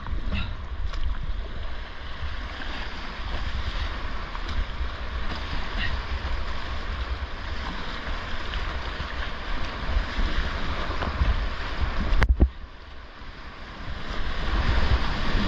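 Whitewater rushing and splashing around a kayak, heard through a GoPro with wind rumble on the microphone. A sharp knock comes about twelve seconds in, and the sound drops quieter for a second or two before the rush comes back.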